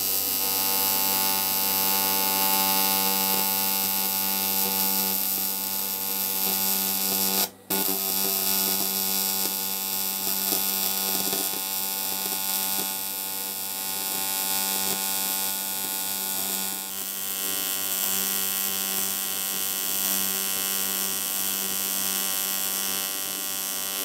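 AC TIG welding arc on aluminium alloy, a steady electrical buzz with many stacked tones. It breaks off for a moment about seven and a half seconds in, then runs on.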